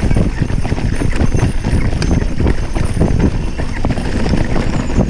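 Mountain bike rattling and knocking over a rocky dirt trail at speed, tyres crunching on stones with rapid irregular clatter, over a steady low rumble of wind on the microphone.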